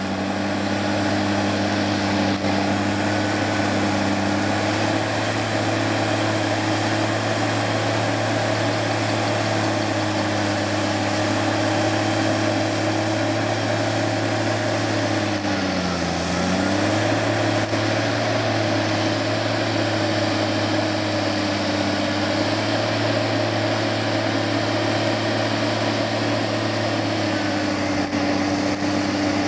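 Claas Xerion tractor's diesel engine running steadily while it pulls a tillage implement through the field. About halfway through, the engine note drops briefly and then comes back up.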